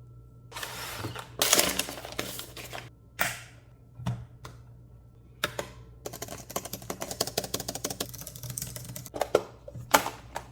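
Handling noise from a tablet and its packaging: rustling swells and sharp clicks, then a fast run of small clicks lasting about three seconds, and a few louder clicks near the end.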